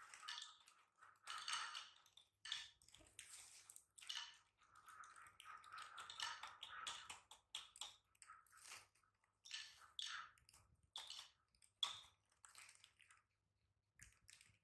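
Plastic snack bag crinkling in short, irregular bursts as it is handled and shaken out over a small plate.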